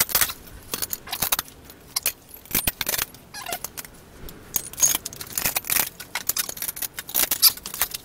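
Steel parts clinking and rattling against a welded steel frame as they are handled and fitted, a quick irregular run of sharp metallic clicks and taps.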